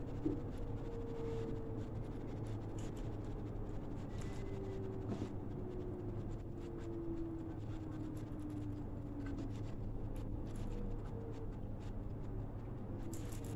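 Eating by hand: fingers tearing crisp fried mullet and pressing rice and vegetables on a plate, giving small crackles and scratchy rustles. A steady low hum runs underneath.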